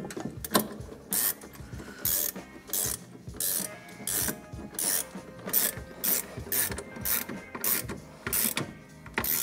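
Hand ratchet wrench clicking as it runs in the caliper mounting bolts on a front brake, in short runs of clicks about twice a second.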